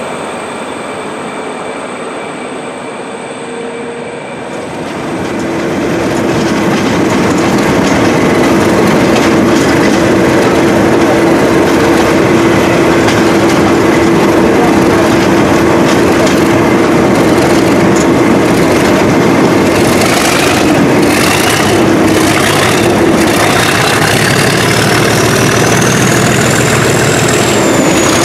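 A DB class 218 diesel locomotive pulling out of a station, then, from about five seconds in, a Class 37 diesel locomotive's English Electric V12 engine working hard under load, heard loud from the cab side as the train runs along. Over the last eight seconds a turbocharger whistle rises steadily in pitch above the engine.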